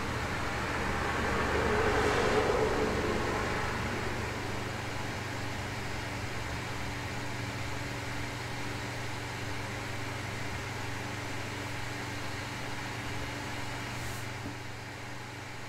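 A car passing outside, swelling to its loudest about two seconds in and fading away over the next few seconds, over a steady low hum and hiss of room noise. Near the end the background drops a little quieter.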